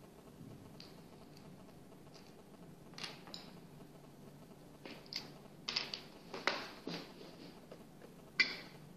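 Scattered small clicks, taps and rustles of hands handling a string of plastic soft-LED pixel modules and their cables on a workbench, with one sharper tap about eight seconds in.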